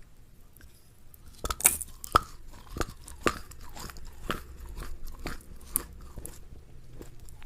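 Crunchy food being bitten and chewed close to the microphone: a run of sharp crunches beginning about a second and a half in, roughly two a second, the first few the loudest.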